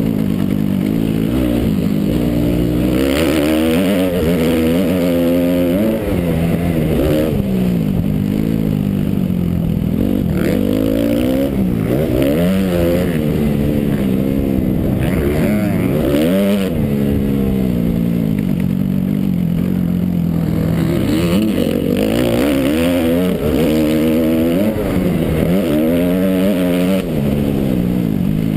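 Suzuki RM-Z motocross bike's four-stroke single-cylinder engine, heard from a helmet-mounted camera, revving up and falling off again and again as the rider shifts and rides the dirt track.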